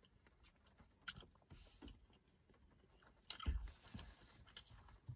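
A person chewing a slice of beef salami, with small wet mouth clicks. A little after three seconds in there is a louder dull knock, something handled in the car.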